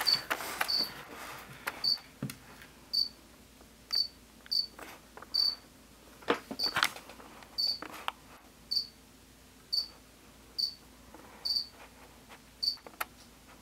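A cricket chirping: short, high chirps at a single pitch, roughly one a second and unevenly spaced. A couple of soft knocks fall around the middle.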